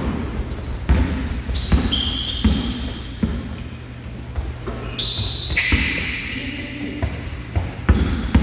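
A basketball being dribbled and bounced on a hardwood gym floor, thudding a little more than once a second. Rubber-soled sneakers squeak sharply on the boards, loudest about six seconds in, and the sound echoes around a large gym hall.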